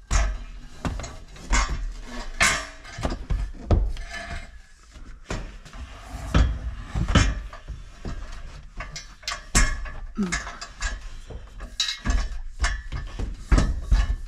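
A steel half roll cage being manoeuvred into the stripped rear of a car for a test fit, knocking and clunking irregularly against the body and floor.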